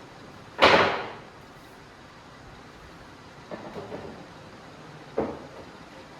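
Wooden furniture parts being handled and set in place: a loud knock about a second in, a few softer bumps and scrapes near the middle, and another sharp knock near the end.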